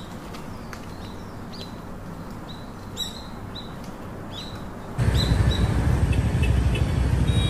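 Small birds chirping, short calls about twice a second, over a faint steady city hum. About five seconds in it cuts to much louder street traffic, with car and motorbike engines running.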